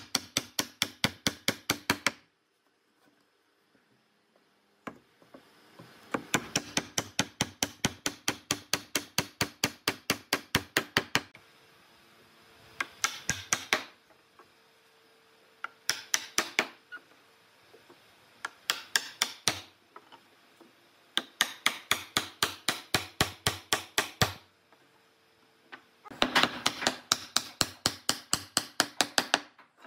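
Rapid hammer taps in repeated runs of about five blows a second, each run lasting a few seconds with short pauses between, as tenoned wooden posts are driven into glued mortises in a rail.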